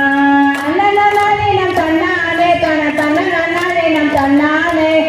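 A high voice singing a melodic folk song with long held notes, with sharp handclaps keeping rough time, as for a circle clapping dance.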